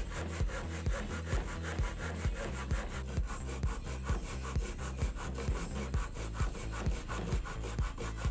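Hand saw cutting a kerf into a pine board, with a steady back-and-forth rasp of the teeth through the wood. Background music with a steady beat plays underneath. The sawing stops abruptly at the end.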